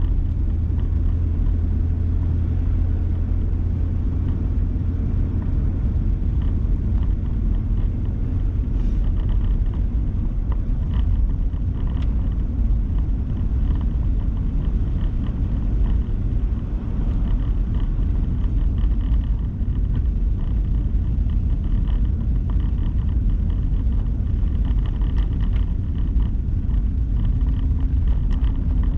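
Steady low rumble of a four-wheel-drive vehicle driving on snowy roads, heard from inside the cab: engine and tyre noise.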